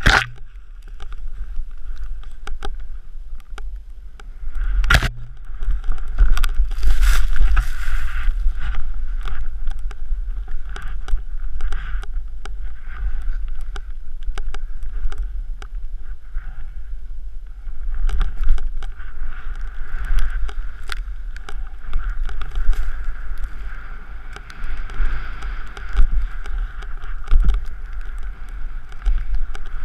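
A snowboard riding through deep powder, with the board hissing and swishing through the snow and a heavy rumble of wind on a helmet-mounted camera. Two sharp knocks stand out, one at the very start and one about five seconds in.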